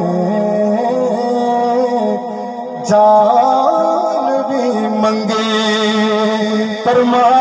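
A man sings a Punjabi naat (Islamic devotional song) through a microphone and PA loudspeaker, in long drawn-out gliding notes. It gets louder about three seconds in.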